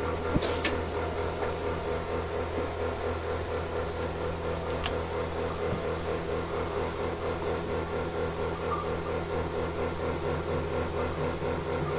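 Buffalo milking machine running: a steady motor hum from the vacuum pump with a quick, regular pulsing from the pulsator.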